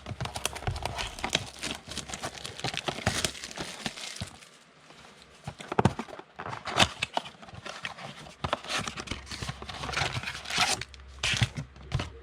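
Packaging of a trading-card blaster box being torn open and crinkled: irregular tearing and crackling of plastic wrap and card packs, with brief pauses.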